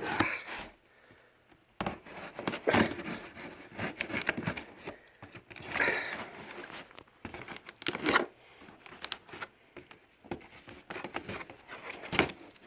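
A cardboard shipping box being cut and torn open at one end, in a run of irregular ripping, crinkling and scraping sounds with several louder rips.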